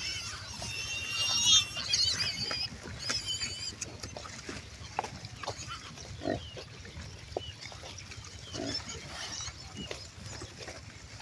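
Pigs grunting in short low grunts every second or two, with high, wavering squeals in the first few seconds.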